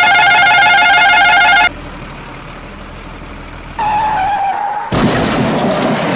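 Edited-in sound effects: a loud warbling electronic ringing tone lasting under two seconds, then a faint low rumble, then a short falling tone about four seconds in. About five seconds in, a loud rough noisy rush takes over.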